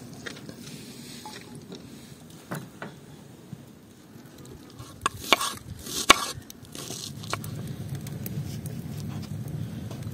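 Kitchen knife chopping an onion on a wooden cutting board: a few light taps, then a cluster of sharp chops about five to six seconds in. A low steady rumble follows near the end.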